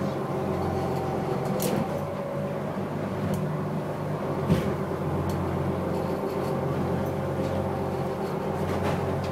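Fishing boat's engine running steadily under way, heard from inside the wheelhouse, with a single thump about four and a half seconds in.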